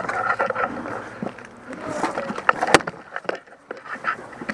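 Footsteps and rustling gear of an airsoft player moving on foot, with scattered sharp clicks and knocks. The loudest is a single sharp knock about two-thirds of the way in.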